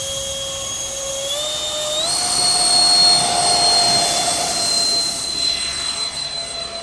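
Twin 70 mm electric ducted fans of an RC Boeing 737 MAX 8 model at full takeoff power: a high, steady whine that steps up in pitch twice in the first two seconds, then holds through the takeoff run and climb, fading a little near the end as the model climbs away.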